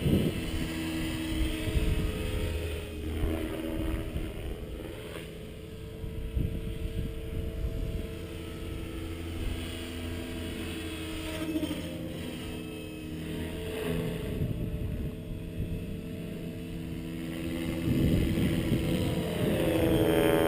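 Align T-Rex 550E electric RC helicopter in flight: a whine from its motor and rotor blades that shifts in pitch and loudness as it manoeuvres. It is loudest near the end, with a sliding change in pitch as it passes close.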